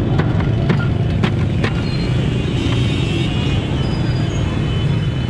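Steady rumble of street traffic and crowd. In the first couple of seconds, about four sharp knocks as a block of ice is chipped with a knife.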